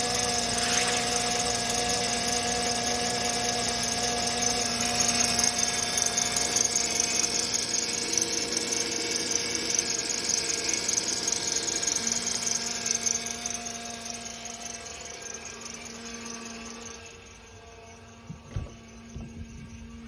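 Power steering pump of a 2007 Honda Odyssey with the J35A7 V6 whining and squealing steadily over the engine idle on a cold start. The whine fades over the last third, leaving the quieter idle and a few clicks near the end. The owner puts it down to cavitation: air drawn into the system past aged, brittle O-rings.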